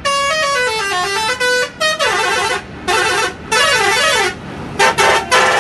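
Electronic musical vehicle horn playing a tune of stepped notes, then a warbling passage, then quick repeated blasts near the end.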